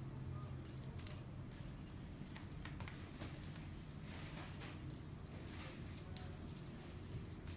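Small bell jingling in irregular bursts as a cat pounces on and bats at a mouse toy on a string.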